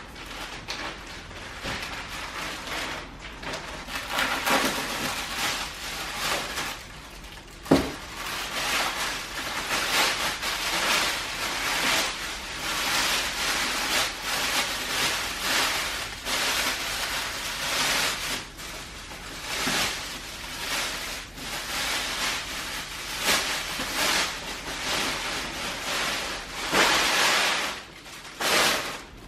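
Plastic packaging bag rustling and crinkling steadily as a vacuum-sealed dog bed is pulled out of it and the plastic is handled. A single sharp knock comes about eight seconds in.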